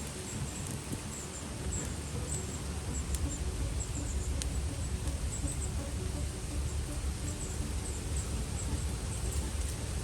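Wood campfire burning, with a few sharp single pops over a steady low rumble. Faint short high chirps repeat in the background.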